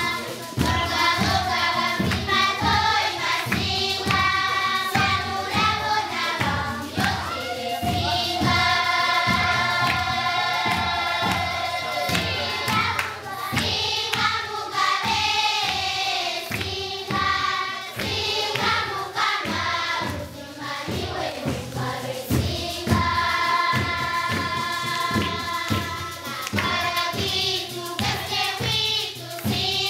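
A choir singing together over a steady percussive beat.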